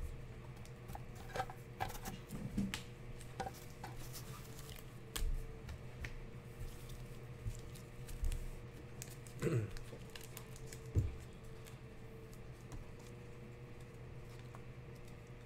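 Trading cards being shuffled, slid and set down in stacks on a desk mat: scattered soft clicks and taps, with a couple of louder knocks past the middle, over a steady low hum.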